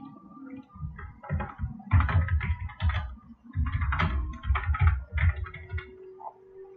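Typing on a computer keyboard: a quick, uneven run of key clicks with dull thuds. It starts about a second in and stops shortly before the end.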